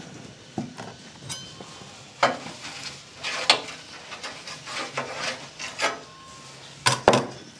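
A metal spatula scraping and spreading oil across the hot steel plate of a Blackstone tabletop flat-top griddle in a series of strokes, the loudest two close together near the end, over a light sizzle.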